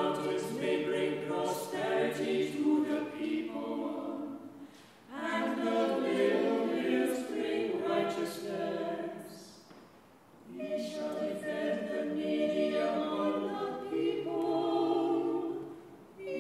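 Unaccompanied choir singing a psalm in Anglican chant, in three phrases with brief breaths between them about five and ten seconds in.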